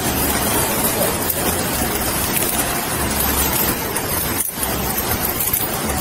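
Steady hiss and low hum of outdoor background noise on a police body-worn camera microphone, with traffic or a vehicle running in the background.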